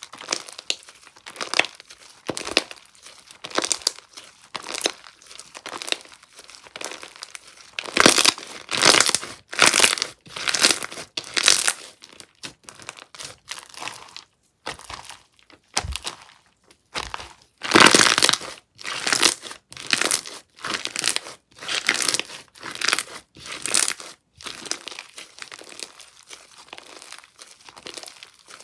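Cream 'block' slime being squeezed and pressed by hand, making short crackly, crinkly squishes at a little under two a second, louder in two stretches.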